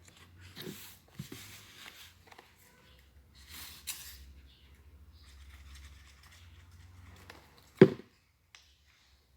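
Paper rustling and scraping as folded paper cutouts are handled and glued down onto a sheet, with one sharp knock about eight seconds in.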